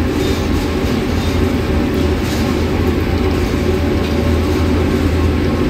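2,000-watt laser cutting machine running, a loud, steady mechanical noise with a low hum.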